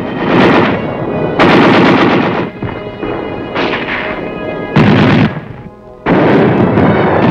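Battle gunfire in about five loud, sudden bursts separated by short lulls, the last lasting about two seconds. A music score plays faintly underneath.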